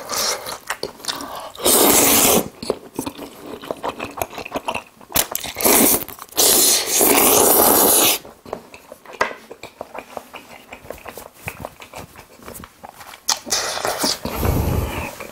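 Close-miked eating of jajangmyeon noodles: loud slurps about two seconds in and again around six to eight seconds, with wet chewing and mouth clicks between them, and a dull low thump near the end.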